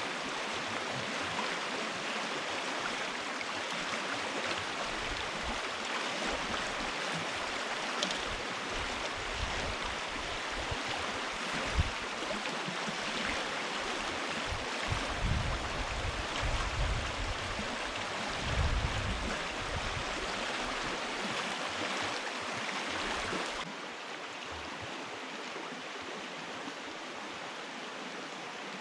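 Steady rushing of a stream, with a few low rumbles and a single knock in the middle. About three-quarters of the way through, the sound drops abruptly to a lower level.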